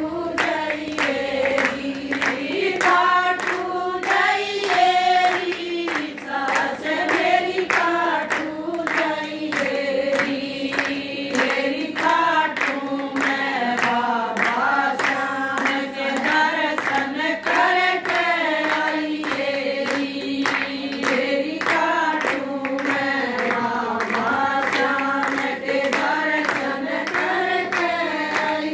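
A group of women singing a bhajan together, clapping their hands in a steady rhythm along with the song.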